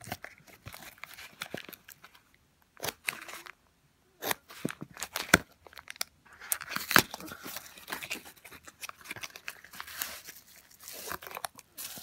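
Small taped cardboard box being torn open by hand, with scattered sharp snaps of paper and tape. About halfway through it turns into denser crinkling as the battery inside its bubble-wrap packing is pulled out.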